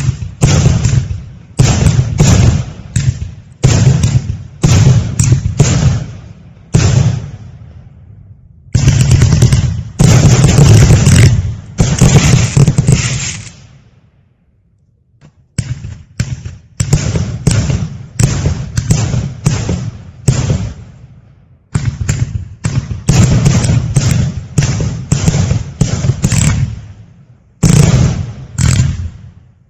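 FP-B420 'Firebird' consumer firework cake firing shot after shot. Each shot is a sharp bang that trails off. About halfway through comes a denser, longer run of shots, then a pause of about a second and a half before the shots resume.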